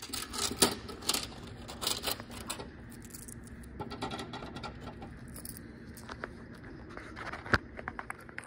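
Irregular clicks, knocks and rattles of a hand working in a Coca-Cola vending machine's plastic push-flap delivery bin to take out a drink bottle, with a sharp knock about seven and a half seconds in.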